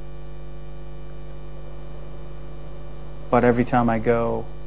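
Steady electrical mains hum, with a man's voice speaking briefly near the end.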